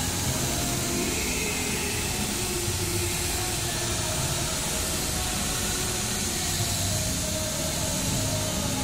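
Electric rotary car polisher running steadily, its buffing pad working over painted bodywork with a continuous motor whir and hiss.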